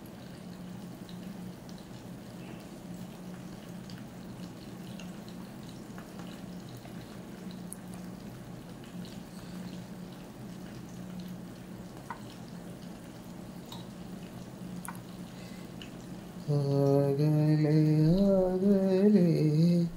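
A steady low hum with a few faint clicks, then, about three and a half seconds before the end, a man starts humming a tune.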